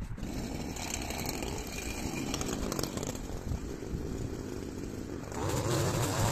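Petrol hedge trimmer's two-stroke engine running steadily while cutting, getting louder about five seconds in.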